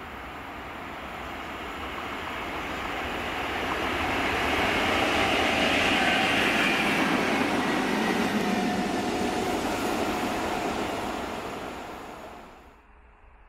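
A convoy of diesel locomotives led by a yellow SNCF BB 75000-class diesel passes close by. Engine and wheel-on-rail noise swells as it approaches, peaks around the middle as it passes, then fades, and cuts off abruptly near the end.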